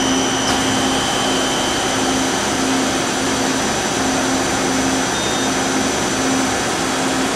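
Okuma LB25 CNC lathe's spindle spinning its 12-inch three-jaw power chuck at 1,000 RPM: a steady whir with a thin high whine over it.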